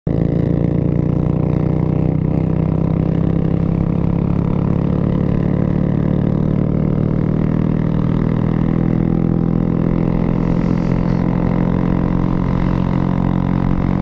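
Honda Grom's 125 cc single-cylinder engine running steadily at cruising speed, with a brief shift in pitch about two seconds in.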